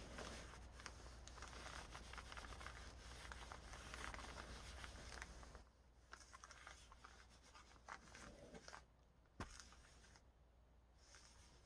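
Faint rubbing and scratching of a hot covering iron sliding back and forth over the plastic film covering of a foam RC airplane elevator. The rubbing stops about halfway through, leaving a few faint clicks.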